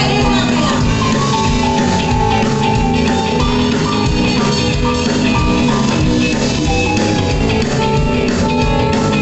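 Rock music with drums and guitar, playing steadily.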